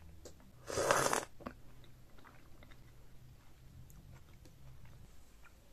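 Close-miked eating of seafood in chili butter sauce: one loud, short bite about a second in, followed by soft chewing with faint mouth clicks.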